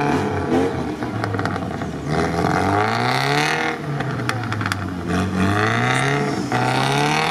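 UAZ off-roader's engine revving hard as it pushes through deep mud, the revs climbing and dropping again in surges every two to three seconds.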